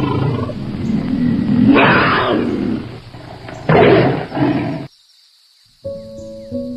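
Tiger roaring, with two loud roars about two seconds apart, cut off suddenly just under five seconds in. About a second later, music with held notes comes in.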